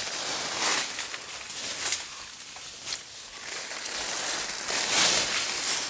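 Rhododendron branches and leaves rustling and crackling as someone pushes through a thick thicket, with scattered snaps and the loudest stretch about five seconds in.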